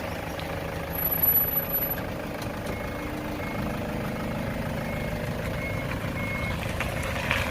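Camper on a Toyota Camroad truck chassis running, a steady engine and road rumble, with a few short, faint high beeps in the second half.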